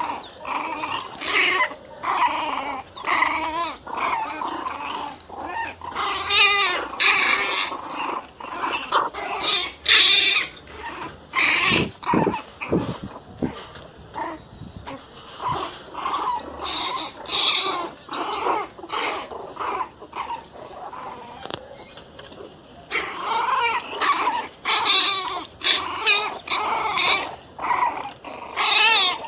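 Pinschers growling in short, repeated bursts, the pitch wavering; this is aggressive, hostile growling.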